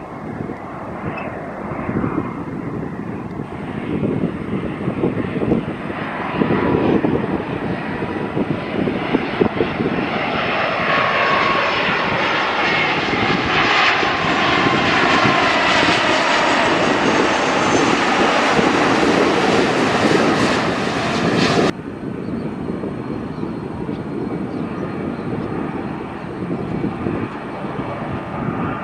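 Airbus A330 jet airliner on low final approach: jet engine noise builds steadily to its loudest as the plane passes, then cuts off abruptly. A quieter, steady jet noise from the next approaching airliner follows.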